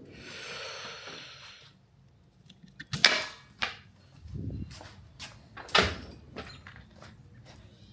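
Hand tools being handled while fitting a 13 mm socket to a pulley bolt: a rustling scrape for about the first two seconds, then several sharp clicks and knocks with a dull thud between them.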